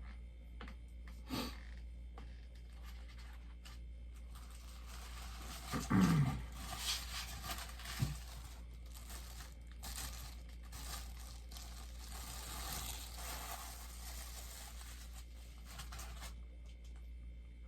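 Packaging rustling and crinkling as a bobblehead is unwrapped, with scattered clicks and a short low voice-like sound about six seconds in.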